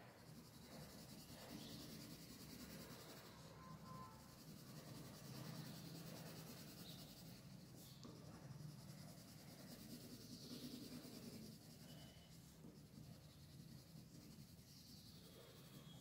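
Faint scratching of a colour pencil lightly shading on drawing paper, in continuous strokes that rise and fall in loudness.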